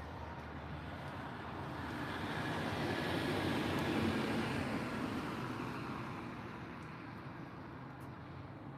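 A car driving past on the street, its tyre and engine noise swelling to loudest about four seconds in and then fading away.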